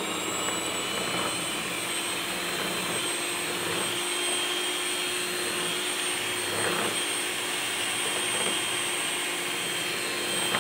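Electric hand mixer switched on right at the start and running steadily with a motor whine, its beaters working flour into cake batter.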